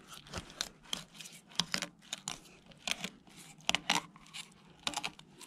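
Fillet knife cutting along a crappie's body, the blade scraping and clicking against the bones in a quick, irregular series of ticks. Hearing the knife hit the bone is the sign the cut is running close along the skeleton and the fillet is being taken properly.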